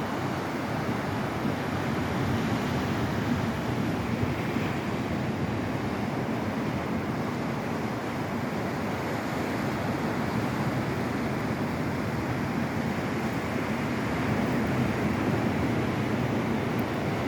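Ocean surf washing onto a beach: a steady rush of breaking waves that swells gently now and then.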